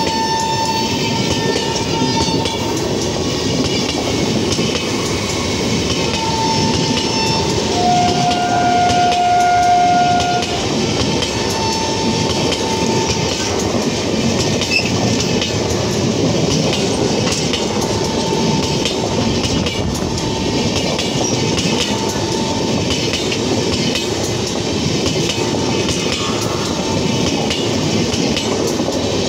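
LHB passenger coaches of an express train rolling past at close range: a steady rumble with wheels clattering over the rail joints. A thin, drawn-out tone comes and goes several times over the rumble, the strongest and lowest of them about eight seconds in.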